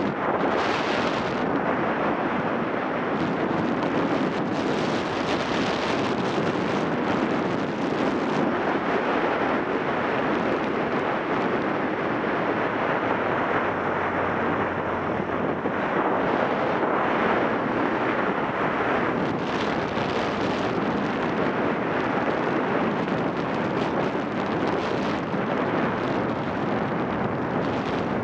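Wind rushing over the microphone of a camera on a moving Yamaha XTZ 750 Super Ténéré motorcycle, a steady loud roar of wind and road noise with the bike's parallel-twin engine running underneath.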